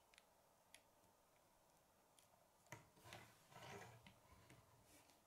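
Faint clicks of plastic K'nex parts being handled and snapped together, with a louder clatter of plastic pieces about three seconds in as the model is set down on a wooden tabletop.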